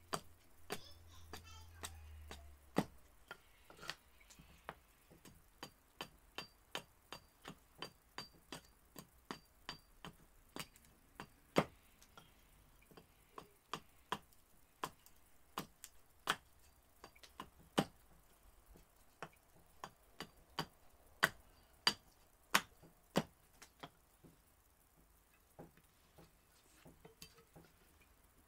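Gränsfors Bruk Large Swedish Carving Axe hewing a split cherry spoon blank on a chopping block: short, sharp wooden knocks about two a second, some much louder than others. The strokes grow fewer and softer near the end.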